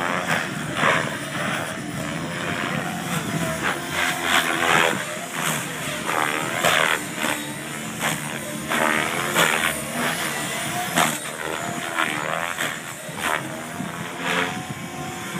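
Electric 550-size RC helicopter flying 3D aerobatics, its main rotor blades whooshing in repeated bursts, about one a second, as it flips and changes pitch, over the changing whine of the electric motor.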